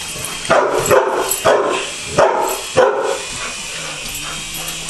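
A dog barking about five times in quick succession, the barks ending about three seconds in, followed by a faint steady low hum.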